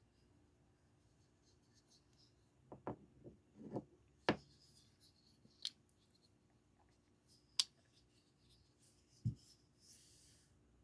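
Noble Outfitters flipper pocket knife being handled: a few soft clicks and knocks, then three sharp clicks spaced a second or two apart as the blade is flipped open and snapped shut, and a dull thump near the end. All faint.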